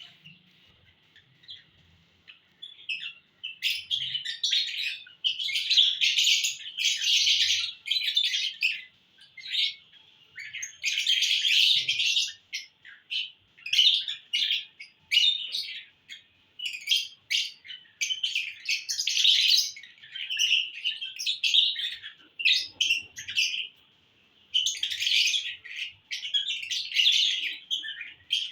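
Lovebirds chirping and chattering in fast, high-pitched bursts with short pauses between them, starting a few seconds in.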